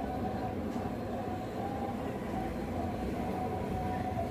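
Steady low rumble with a faint, wavering held tone running through it.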